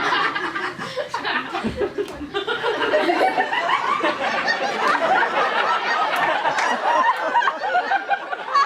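Audience laughing, many people at once, dipping briefly about two seconds in and then building again.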